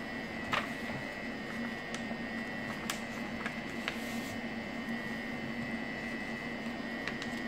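A sheet of paper being folded and pressed flat by hand on a tabletop, giving a few short rustles and taps, over a steady background hum.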